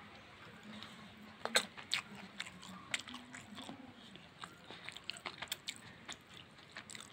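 Faint, irregular small clicks and crackles, a few a second, over low room noise.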